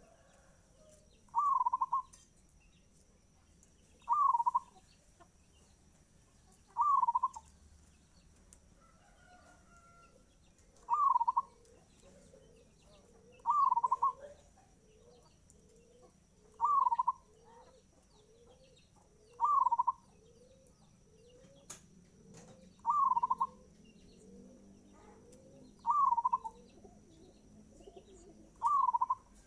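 Zebra dove (perkutut) cooing its song in a fast tempo: a short, loud phrase repeated about every three seconds, about eleven times. Through the middle, a fainter, quicker run of short, lower rising notes sounds between the phrases.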